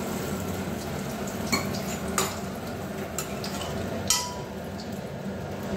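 Diced potatoes, oil and freshly added water sizzling in a pressure cooker while a spoon stirs them, knocking against the pot a few times.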